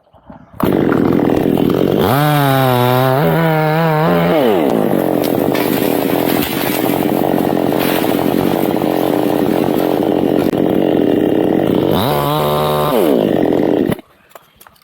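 Chainsaw cutting into a teak tree: it comes in suddenly, revs up a couple of seconds in, runs at a steady, lower pitch under load through the cut, revs once more near the end and then cuts off sharply.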